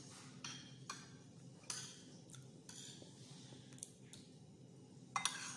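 Spoon and fork scraping and clinking against a plate as rice is scooped up: a handful of short, irregular strokes, the loudest near the end.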